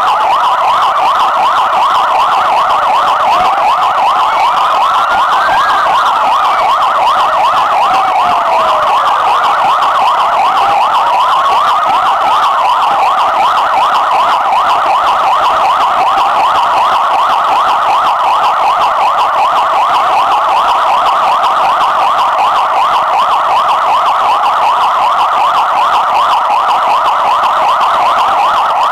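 Bulgarian police car siren sounding a rapid, continuous yelp, with a slower rising-and-falling wail heard over it through the first half and faintly again later.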